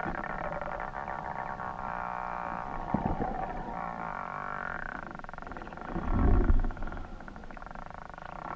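Underwater sound picked up by a submerged camera: a steady buzzing drone whose pitch slowly wavers up and down. A knock comes about three seconds in, and a loud low rumbling gush about six seconds in.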